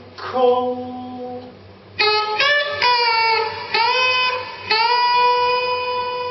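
Electric guitar played through a Whammy pitch-shifting pedal. After a soft note, a run of plucked notes bends sharply down and then up in pitch, and ends on a long held note.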